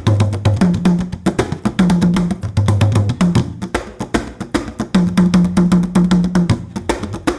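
Fast Giriama drumming: a dense stream of sharp, rapid drum strokes over low held tones that alternate between two pitches.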